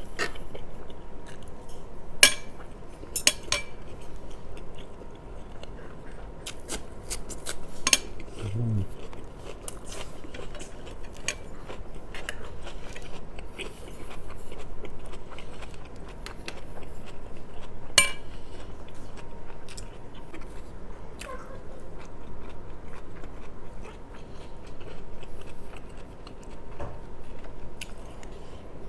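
Close-miked eating of rice and meat: cutlery clinking and scraping on a plate with chewing between, and a few sharp clinks.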